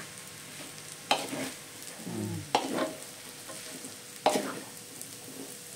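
Fried noodles sizzling steadily in a wide wok while a wooden spatula stirs them, with three sharp scrapes or knocks of the spatula against the wok.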